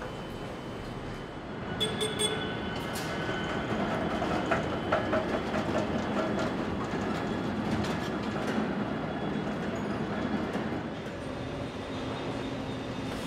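Car assembly line machinery running: a steady mechanical rumble with scattered clicks and clanks, growing louder about two seconds in.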